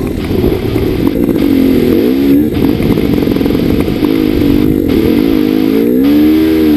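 Dirt bike engine running hard while riding on sand, its pitch rising and falling as the throttle is worked, with brief drops in the noise about five times as the throttle is rolled off.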